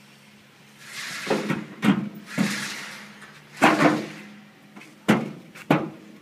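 Sheet-metal cover panel of a small combine harvester being handled: metal sliding and scraping for a couple of seconds, then a heavy clunk and two sharper metallic knocks.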